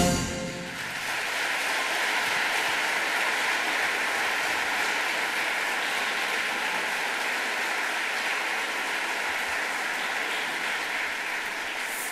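Audience applauding steadily after the orchestra's closing chord cuts off at the very start, the clapping slowly tapering.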